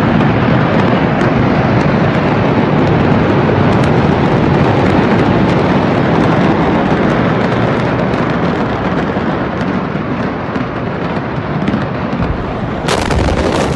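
Loud, continuous rushing roar of the Beirut port explosion's aftermath on a phone microphone, as the blast's dust cloud sweeps over the quay. It turns harsher and hissier near the end.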